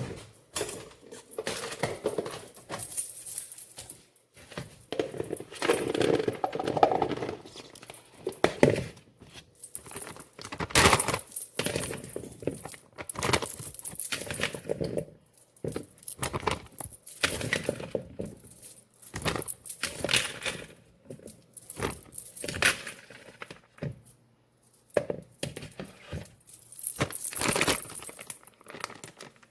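Kitchen clatter: irregular clinks and knocks of utensils and hard objects being handled during fruit preparation.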